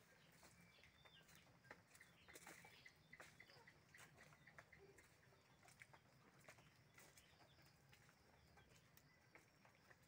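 Near silence: faint scattered ticks and rustles, with a few faint bird chirps.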